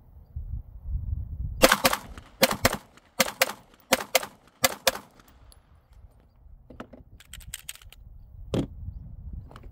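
Glock pistol fired in five quick pairs, ten shots in all, with about a fifth of a second between the two shots of each pair and under a second between pairs. Faint clicks follow, then a single knock near the end.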